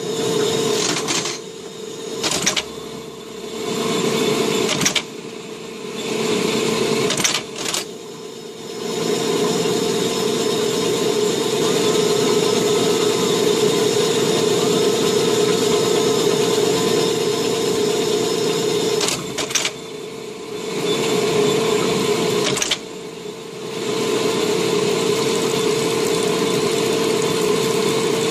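Brown & Sharpe #00 automatic screw machine running and cutting copper stock under a flow of cutting oil: a loud, steady mechanical hum with a constant tone. In the first several seconds it drops off and comes back a few times, then runs steadily, with two short dips later on.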